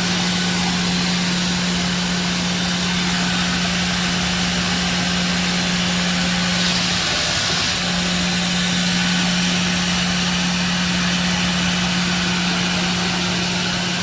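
Automatic belt grinding machine running: a steady motor hum over the hiss of the abrasive belts, with a brief brighter hiss about seven seconds in.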